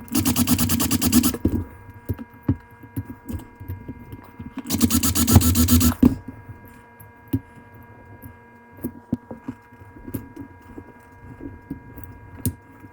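Power drill running in two short bursts of about a second and a half each, drilling out the rivet post of a die-cast metal toy car to free its base. Between and after the bursts come light clicks and taps of small metal parts being handled.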